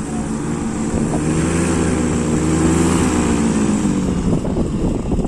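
Paramotor engine and propeller running at high power, the pitch rising and falling slightly with the throttle. Near the end the steady engine tone gives way to rough, gusting noise.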